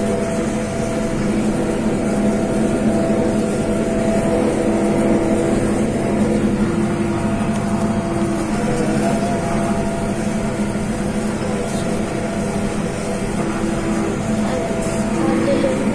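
Tractor engine running steadily while pulling a working small square hay baler, heard from inside the cab.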